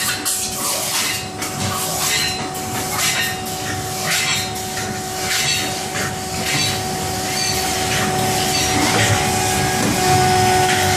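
Leifeld metal spinning machine and its robot loading cell running: a steady machine hum with two held tones and a low rumble, and repeated bursts of hiss every second or so.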